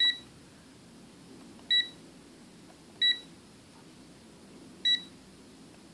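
Aneng AN8009 digital multimeter giving a short, high beep at each press of its front select button, four beeps a second or two apart, as it steps through its ranges to temperature mode.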